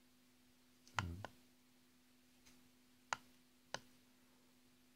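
Rotary encoder knob on an Arduino alarm clock clicking as it is pressed and worked: a quick double click about a second in, then two single sharp clicks later on, over a faint steady electrical hum.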